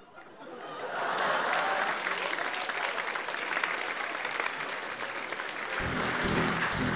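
Audience applauding, swelling over the first second and then steady.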